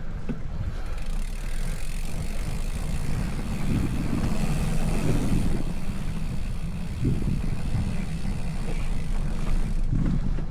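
Wind buffeting the microphone as a low, uneven rumble, with a steady rushing hiss over it that stops shortly before the end.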